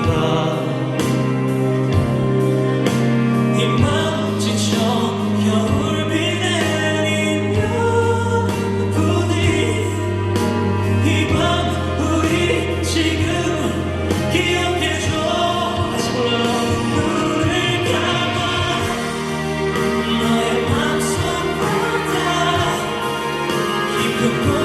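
A singer performing a pop ballad live with instrumental accompaniment, sustained chords under the sung melody.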